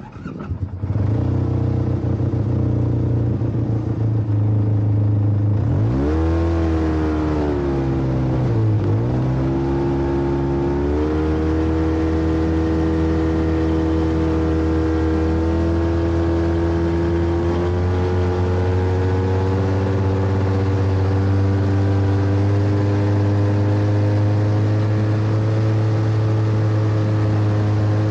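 Snowmobile engine running as it is ridden over snow. Its pitch dips about eight seconds in and climbs back, then holds steady, rising slowly toward the end.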